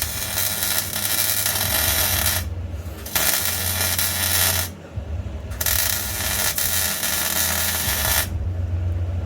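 Electric arc welder crackling and hissing in three runs of a few seconds each, with short pauses between, over a steady low hum: welds being laid on steel subframe connectors.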